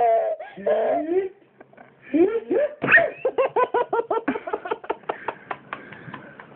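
Baby fussing briefly, then breaking into a rising squeal and a quick run of high-pitched giggles, about five a second, that fade out toward the end.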